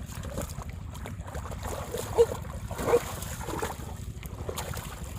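Water sloshing and trickling as hands work through shallow muddy water, over a steady low rumble of wind on the microphone. Two short, sharper sounds stand out about two and three seconds in.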